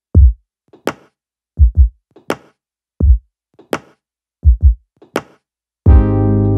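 Electronic background music: a sparse drum-machine beat of deep kick drums with a sharp snare-like hit after each, then a sustained synthesizer chord coming in near the end.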